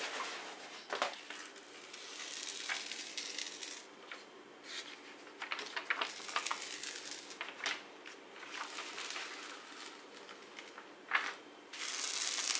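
Rustling and crinkling of a diamond-painting canvas's protective release paper as it is unrolled, smoothed flat and lifted by hand, with scattered sharp crackles. The rustle is loudest near the end as the paper is peeled up.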